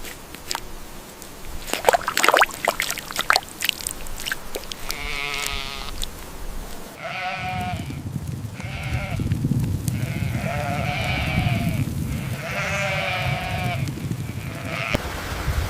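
Sheep bleating: about six wavering calls in a row, the first about five seconds in. A few sharp knocks come before the calls, and a low rumble sits under the later ones.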